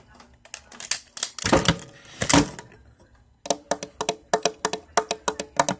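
Close-up ASMR tapping on a hard object near the microphone: a few scattered taps, two louder handling bumps about a second and a half in, then a fast run of sharp taps, about six a second, from past the middle.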